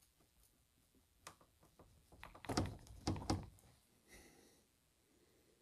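Plastic quick-connect coupling of a car's lower radiator hose knocking and clunking against the radiator as it is pushed home into place, with a few faint clicks and a cluster of short knocks about halfway through.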